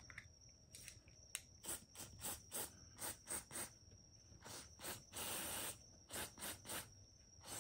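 Aerosol cleaning spray hissing from a can in a string of short spritzes, about three a second, with one longer spray of about a second just past the middle.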